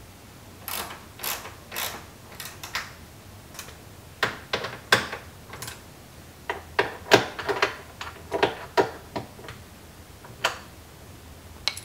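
T-handle socket ratchet clicking as a man tightens fasteners on the top platform of an aluminium drawer module. The clicks come in irregular runs with short pauses between them, followed by a few single clicks near the end.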